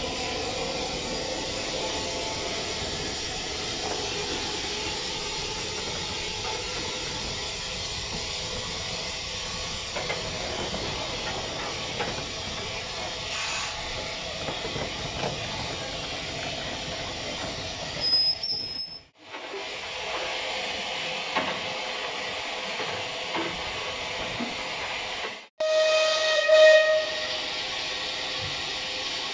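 Steam locomotive 34081 '92 Squadron', a Bulleid Battle of Britain class Pacific, standing with a steady hiss of steam. About two-thirds of the way in there is a brief shrill whistle, and near the end the locomotive's steam whistle sounds once for about a second and a half, the loudest sound.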